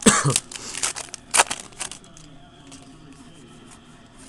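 Trading cards and a foil pack wrapper being handled: crinkling and rustling with cards sliding against each other for about two seconds, then only a few faint ticks.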